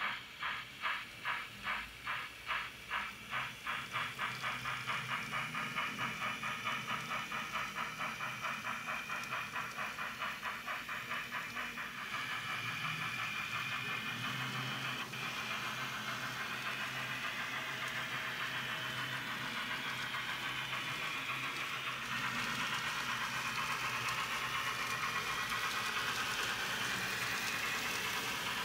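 Sound-equipped N-scale model of Union Pacific 4-8-4 steam locomotive 844 chuffing as it pulls away with a train. The chuffs start at about two a second and quicken steadily until they blur into a fast, even beat with hiss by about twelve seconds in.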